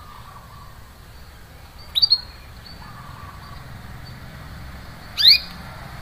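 Canary giving short, sharp, rising 'cuit' call notes: a quick pair about two seconds in and another just after five seconds, over a steady low hum. This is the 'cuit cuit' call that keepers play to prompt a silent canary to start singing again.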